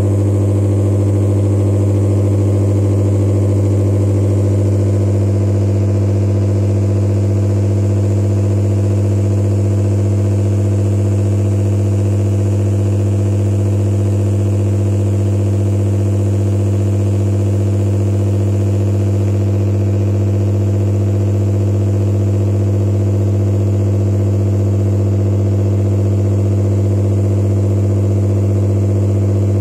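Vibrating tray shaking a layer of pink and white stone grit, giving a loud, steady low buzz with a row of overtones. The upper overtones change slightly about five seconds in.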